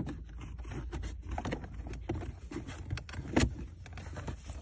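Plastic centre-console side trim panel being pushed back into place by hand: a string of light clicks and knocks, the loudest about three and a half seconds in.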